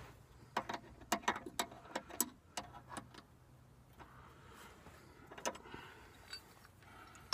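Combination wrench clinking on the nut of a sway bar link as it is worked: a run of light metallic clicks over the first three seconds, then one more about five and a half seconds in.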